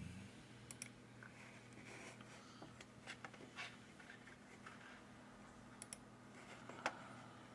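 Near silence: a faint steady low hum with a few faint computer mouse clicks, the loudest near the end.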